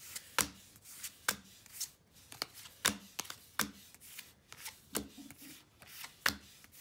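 A small stack of Pokémon trading cards being flipped through by hand, each card slid off the stack and tucked to the front with a sharp papery flick, about one or two a second.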